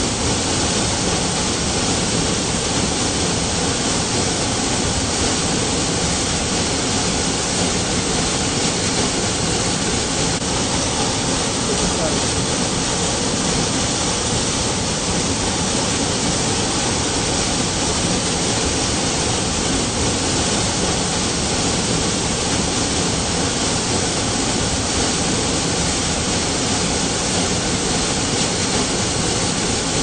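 A large waterfall's falling water, a loud, steady rushing noise that does not change.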